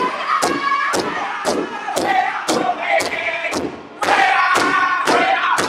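Northern-style powwow drum group: several men singing loud, high voices together over one big drum struck in unison in a steady beat, about two strikes a second. The singing drops away briefly just before four seconds in and comes back in full.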